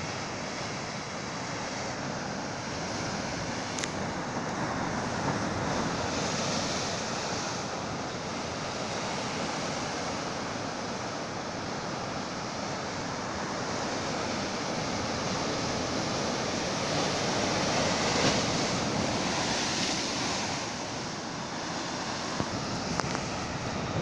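Heavy sea surf crashing and foaming over a rocky shoreline, a continuous wash of breaking water that surges louder about six seconds in and again around eighteen seconds.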